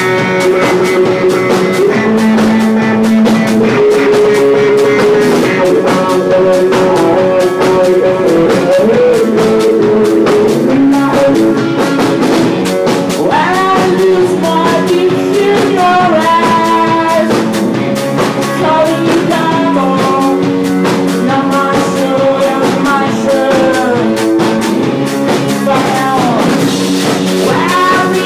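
Garage rock band playing live: electric guitar and drum kit, with a voice singing over them.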